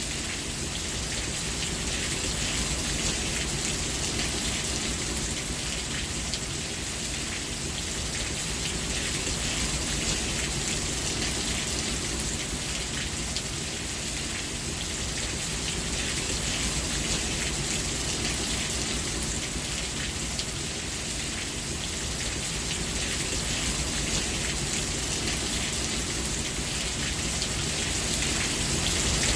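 Steady rain falling and pattering on a surface, an even hiss of drops with no change in intensity.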